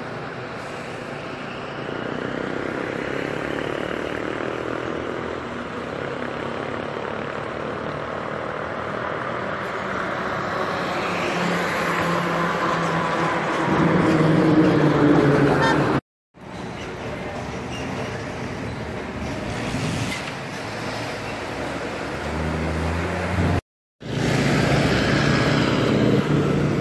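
Highway traffic: trucks and cars passing, a steady mix of engine hum and tyre noise that builds to its loudest about halfway as a vehicle goes by close. The sound cuts out abruptly twice for a moment.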